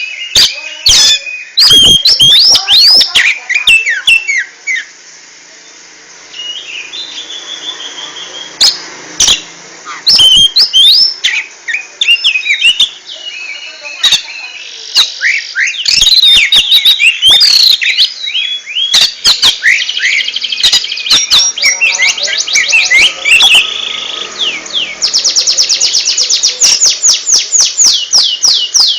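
Oriental magpie-robin (kacer) singing close to the microphone: a varied song of quick whistled sweeps and sharp clicks broken by short pauses. Near the end it goes into a fast, even run of repeated downward notes, about ten a second.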